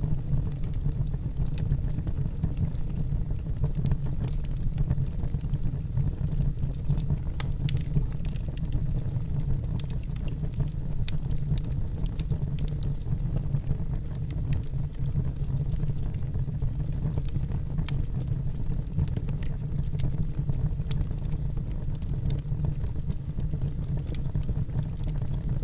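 Campfire burning steadily: irregular crackles and small pops from the burning wood over a constant low rumble of the flames.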